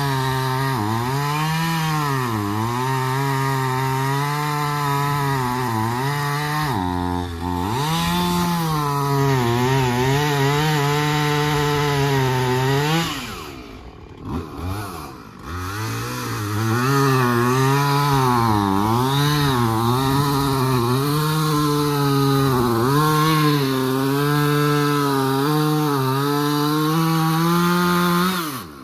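Two-stroke chainsaw cutting through a storm-fallen tree, its engine pitch bobbing up and down under the load of the cut. Around the middle it drops back to a low idle for a few seconds, then revs up and cuts again, and drops off at the end.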